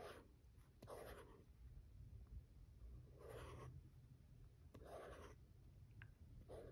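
Very faint swishes of a stylus tip sliding over the matte screen of a Boox Note Air 3C e-ink tablet, about four short strokes as the app list is scrolled.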